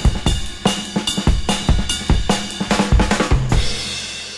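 Outro music: a drum-kit beat with bass drum, snare and cymbals, ending on a last hit about three and a half seconds in that rings out and fades.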